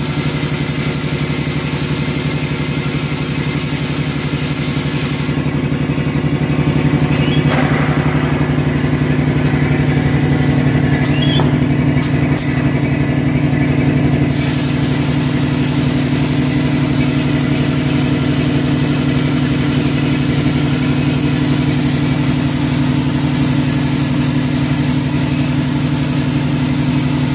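Compressed-air garlic peeling machine and its piston air compressor running: a steady, engine-like mechanical drone with a constant hiss of air.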